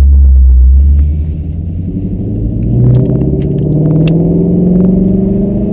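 Shelby GT350 Mustang's 5.2-litre flat-plane-crank V8 pulling away at low speed: a deep rumble at first, then its note rising steadily over a few seconds. A few light clicks and rattles come partway through.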